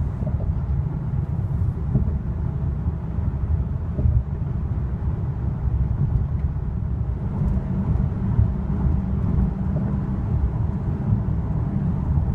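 Steady low rumble of road and drivetrain noise inside the cabin of a 2015 Hyundai Equus on the move, with a couple of faint knocks from small bumps.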